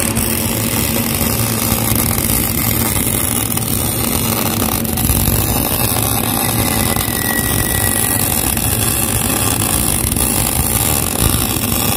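Electric arc welding on 25 mm plate: the steady, unbroken crackle and sizzle of the arc, with a low steady hum underneath.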